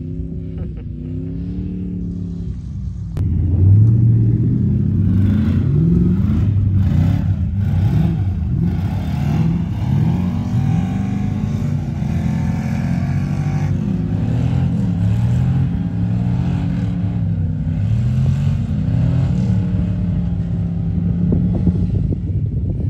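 An off-road vehicle's engine revving up and down again and again, its pitch rising and falling with the throttle. It gets much louder about three seconds in.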